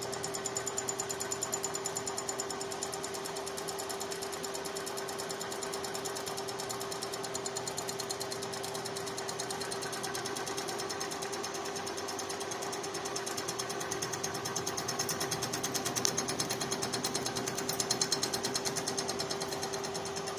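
Milling machine with a high-speed head and a fresh-insert cutter face-milling the flange of an exhaust manifold: a steady motor hum under a rapid, even patter of the cutter on the metal, the milling of the flange face flat after the argon weld repairs.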